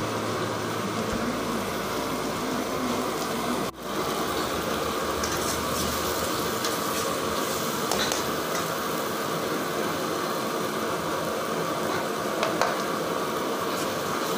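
Chicken, tomato and capsicum sizzling in a frying pan while a steel ladle stirs and scrapes through them, with a few light ladle clicks against the pan. The sound drops out for a moment about four seconds in.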